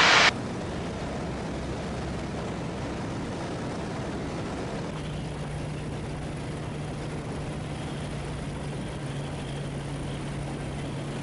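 Steady drone of a Just Aircraft SuperSTOL XL's engine and propeller, heard from inside the cabin, with a low steady hum that comes in about five seconds in.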